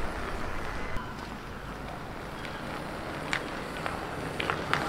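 Fat-tyre electric bike riding by on a wet road: a steady low rumble of tyres and wind, with a few light clicks near the end.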